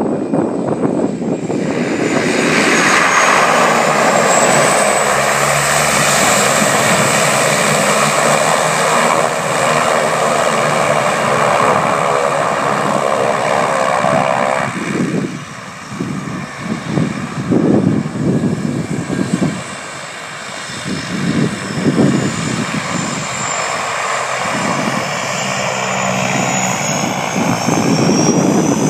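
de Havilland Canada DHC-6 Twin Otter's twin turboprop engines and propellers running loud, the noise swelling about two seconds in and holding steady with a high turbine whine. About halfway through it drops and turns uneven, rising and falling in gusts.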